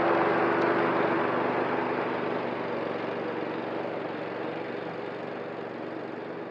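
Cub Cadet ZTS1 zero-turn riding mower running as it drives away, its engine sound fading steadily.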